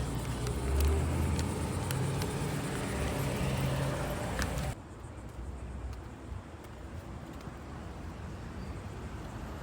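Steady low rumble of a car in motion, heard from inside. It drops abruptly to a quieter hum a little under five seconds in.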